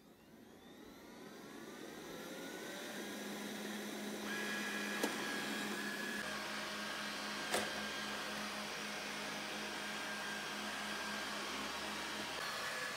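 Xiaomi Mi robot vacuum cleaner starting a cleaning run: its motors spin up with a rising whine over the first few seconds, then settle into a steady whir. Two sharp clicks come about five and seven and a half seconds in.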